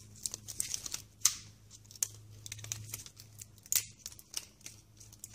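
Pliers clicking and the plastic plug ends of a Christmas light strand crackling as the brass contacts are pulled out, with the wire tangle rustling. Sharper clicks about a second in and near four seconds.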